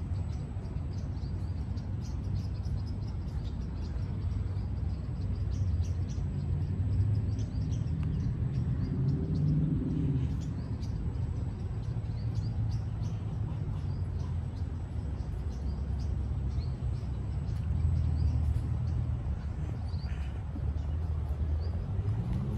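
Steady low rumble of road traffic with frequent small bird chirps over it.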